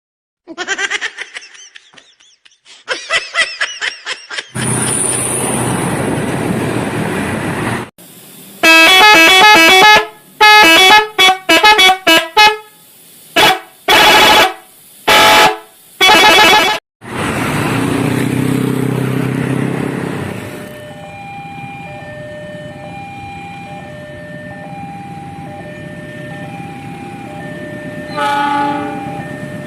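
Loud multi-tone air horns of a 'telolet' bus: a run of changing notes, then several separate loud blasts. Later a quieter two-note signal alternates steadily.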